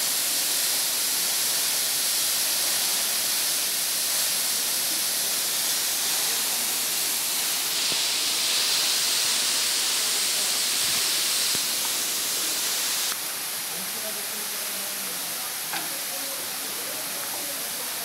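Waterfall rushing, a steady hiss of falling water and spray; it drops suddenly to a quieter level about two-thirds of the way through.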